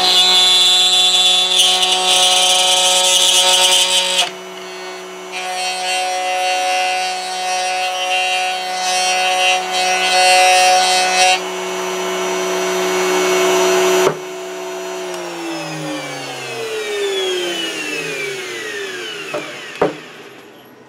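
Table-mounted router cutting a circle through a pine board on a pivot jig, its high motor whine loaded by rough cutting noise, with a short lighter spell about 4 seconds in. The bit is dull and was being pushed hard enough to make the shop fill with smoke. After the cut the router runs free, is switched off with a click about 14 seconds in, and spins down with a falling whine that dies out near the end.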